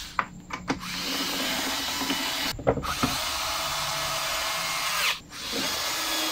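Power screwdriver driving screws into a plastic engine cowling. There are a few clicks, then a steady run of about four seconds that winds down, and after a brief pause about five seconds in, the motor runs again.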